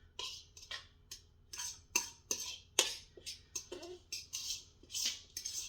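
A utensil scraping and clinking against a mixing bowl in a quick, irregular run of short strokes, scraping out the last of a thick banana-and-oat batter.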